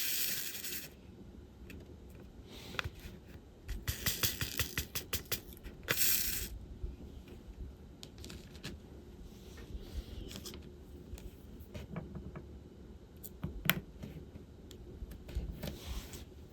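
Small plastic clicks and rattles of diamond painting work: resin drills shaken briefly in a plastic tray, then a quick run of small clicks and taps, then scattered single clicks.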